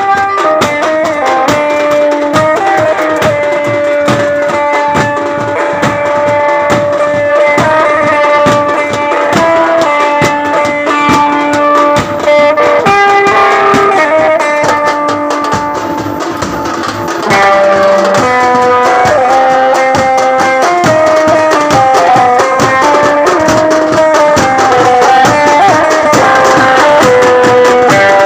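Tasha drum band playing loud, fast drum strokes under a melody of held notes that step up and down. The music gets louder about two-thirds of the way through.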